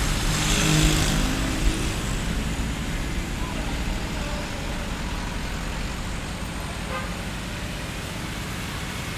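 Busy street ambience: road traffic running steadily under the background voices of a crowd, with a brief car-horn toot in the first second or so. The traffic eases slightly after that.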